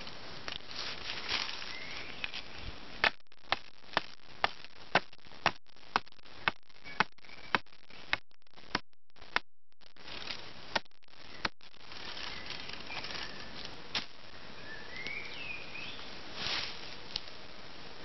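Small axe chopping into the base of a thin sapling trunk: a run of sharp wooden knocks, about two a second for around six seconds, then a few single blows. Birds chirp briefly now and then.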